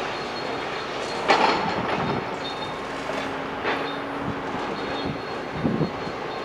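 Demolition machinery working through rubble: a steady mechanical rumble, broken by three heavy clanks of debris and metal, with a brief squeal-like tone midway.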